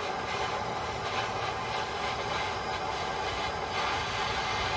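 Handheld blowtorch burning with a steady hiss, its small blue flame heating a seized 7/16 brake line nut at a drum-brake wheel cylinder so the metal expands and the nut can be freed.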